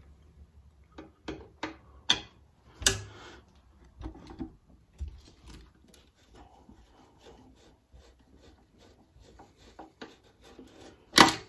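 Screwdriver and loose metal parts being handled: a string of sharp clicks and knocks, with a loud knock about three seconds in and another near the end.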